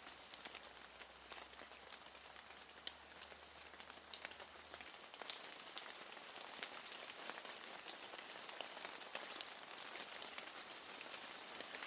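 Steady rain, a soft even hiss with many individual drops ticking through it. A faint low hum underneath stops about five seconds in.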